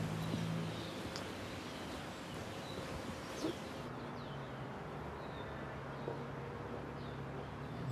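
Outdoor ambience: birds chirping in short, scattered calls over a steady low hum.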